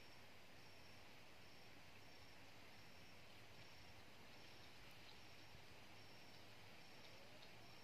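Near silence: faint garden background hiss, with a faint high-pitched chirp pulsing about three times every two seconds, typical of an insect.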